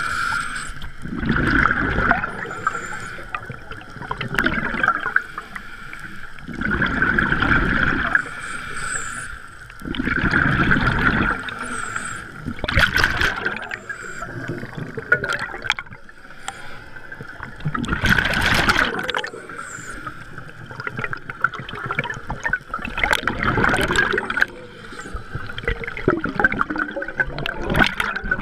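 Scuba diver breathing through a regulator underwater: bursts of exhaled bubbles every few seconds, with a steady high hum underneath.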